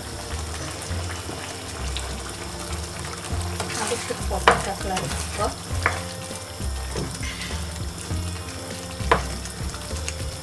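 Potato curry in a thick tomato-and-cream sauce simmering in a pan with a steady sizzling hiss, stirred with a spoon that knocks against the pan a few times around the middle and near the end.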